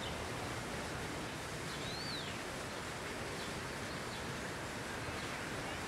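Steady outdoor background noise, with a single bird chirp about two seconds in that rises and then falls in pitch.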